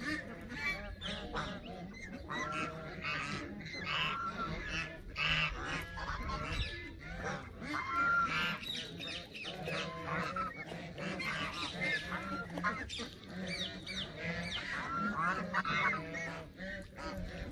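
A flock of geese, Canada geese among them, honking over and over, many short calls overlapping one another.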